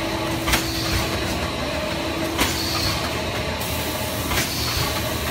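LX3122 thermoforming machine running at about 30 cycles a minute: a sharp clack roughly every two seconds as the press strokes, three in all, over a steady machine hum.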